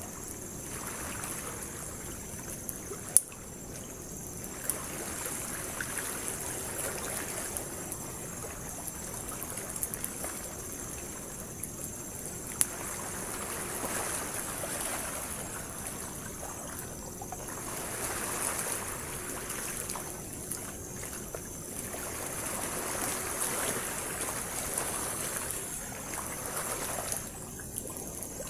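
Sea waves washing onto the shore, swelling and fading every four or five seconds, over a steady high chirring of insects, with a few sharp pops from a small campfire.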